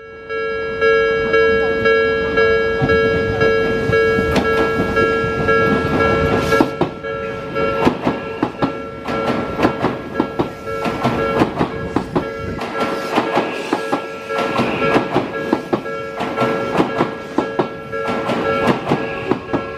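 Japanese level-crossing warning bell ringing steadily as an Odakyu Line train passes over the crossing, its wheels clacking rapidly over the rail joints.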